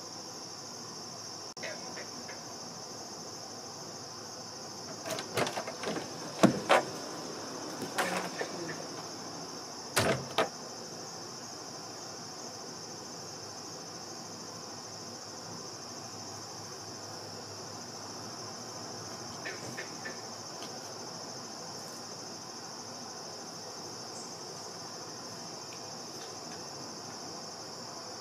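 Crickets chirping in a steady, high-pitched insect chorus. A few sharp knocks and handling noises stand out between about five and ten seconds in.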